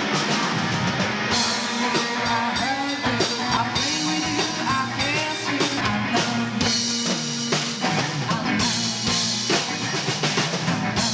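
Rock music: a band with a drum kit and guitar playing, with a singing voice over it.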